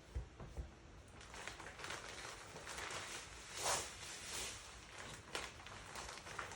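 Scraping and rustling of a wet vinyl decal and its transfer tape being worked by hand on a car roof, with a few soft knocks at the start and two louder swishes around the middle.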